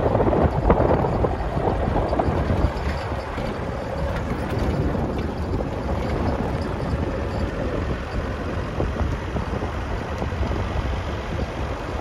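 A vehicle driving along a dirt track: steady engine and tyre noise with some wind on the microphone, a little louder and rougher in the first few seconds.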